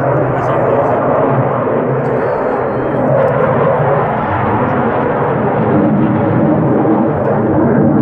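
Display aircraft passing overhead: a loud, steady rushing engine noise with a low drone underneath.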